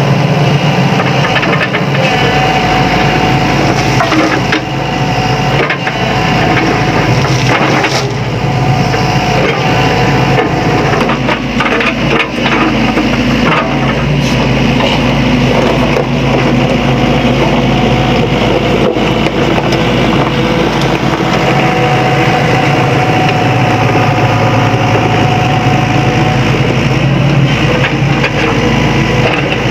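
Sany SY75C excavator's diesel engine running steadily under load with a hydraulic whine that comes and goes, while the bucket digs through gravel with frequent crunching, cracks and knocks of stone.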